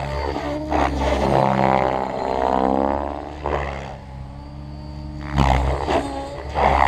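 Thunder Tiger Raptor E700 electric RC helicopter in flight: its 696 mm main rotor and tail rotor buzz, with the pitch rising and falling as it manoeuvres. It dips quieter briefly past the middle and swells loud again near the end.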